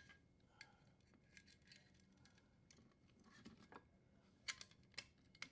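Faint, scattered light clicks and ticks of the dishwasher's power wires and metal junction box being handled, with a few sharper clicks in the last second and a half.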